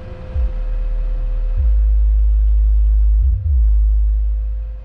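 Car audio subwoofer driven by an Orion HCCA amplifier playing deep bass notes, each held for a second or more, stepping to a new note about a second and a half in and again near three and a half seconds, then fading out at the end. The owner blames faulty RCA cables for the system's low output.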